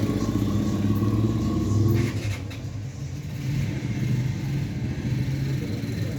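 A motor vehicle engine running close by, a low rumble that is loudest for the first two seconds and then drops back, with a brief clatter about two seconds in.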